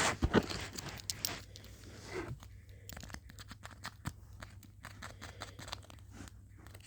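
Crinkling and rustling of a blind bag's packaging being handled and torn open. It is busiest in the first two seconds, then thins to a few faint scattered clicks and taps.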